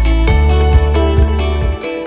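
Intro music led by guitar, with a steady beat about twice a second and a heavy bass line.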